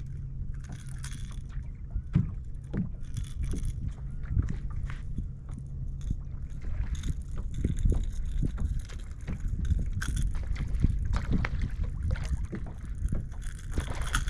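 Water lapping and knocking against a fishing boat's hull, with wind on the microphone and scattered small clicks throughout. A low steady hum runs under it for about the first six seconds, then stops.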